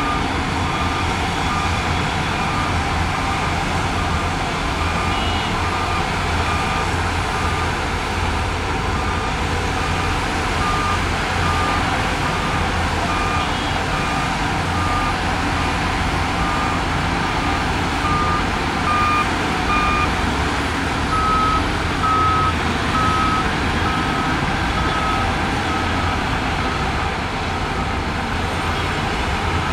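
Reversing alarm on heavy earthmoving machinery beeping in a steady repeating pattern over the low rumble of diesel engines. About two-thirds of the way through, a slightly higher, louder beep takes over.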